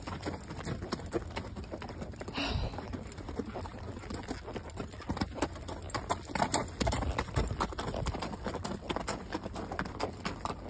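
A ridden horse's hooves clopping on loose gravel, with a steady run of irregular footfalls.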